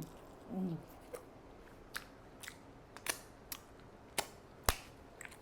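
Close-miked mouth sounds of eating chewy rice cakes: a brief hum about half a second in, then a string of wet clicks and smacks while chewing, the sharpest one near the end.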